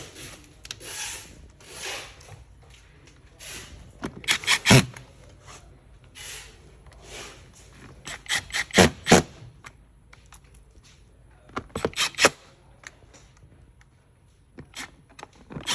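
Plastic and metal parts of an office chair seat rubbing and scraping as they are fitted back together, with clusters of sharp clicks and knocks a few seconds apart as parts and screws are set in place.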